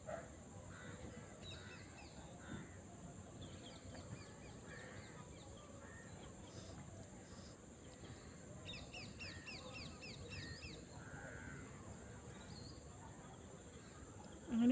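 Birds calling: scattered short calls, and twice a quick run of short falling high notes, about five a second, one around 4 seconds in and a longer one around 9 seconds in.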